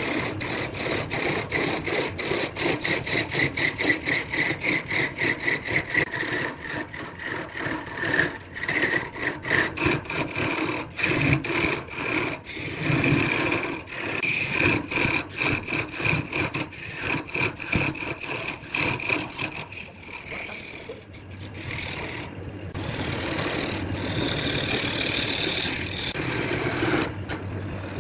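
Wood lathe running while a turning tool cuts the spinning wood, scraping with a fast regular beat of about four hits a second over a steady whine. Near the end the beat gives way to a smoother continuous scrape.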